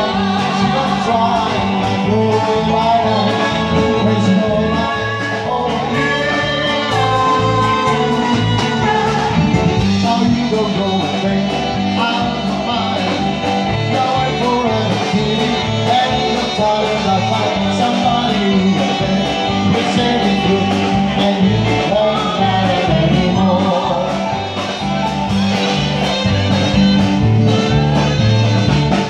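Live band music with electric guitar and a male singer singing into a microphone, in a 1950s rock-and-roll style.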